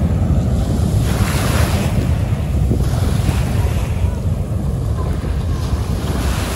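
Sea surf washing onto the shore in repeated waves, with a heavy rumble of wind buffeting the microphone.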